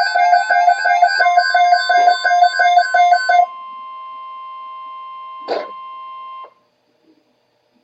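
Weather alert radio sounding its alarm: a buzzy beep repeating about four times a second over the steady 1050 Hz NOAA Weather Radio warning tone that signals an incoming alert. The beeping stops about three and a half seconds in, leaving the plain tone, and a click comes just before the tone cuts off.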